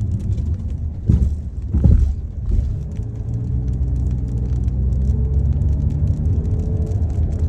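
Car driving, heard from inside: steady low road rumble and engine hum, with two low thumps about a second and two seconds in, and a steadier engine drone from about three seconds on.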